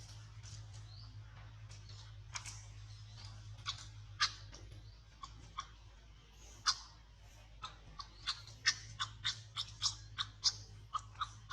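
A run of irregular short, sharp clicks and crunches, sparse at first and then coming two or three a second in the second half, over a steady low hum.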